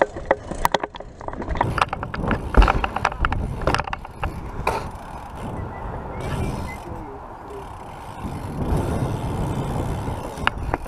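A GoPro's plastic housing rattling and clicking on its mount while a BMX bike rolls over concrete and ramps, with tyre rumble and wind noise underneath. The clicking is dense in the first half and the rolling noise is steadier after that.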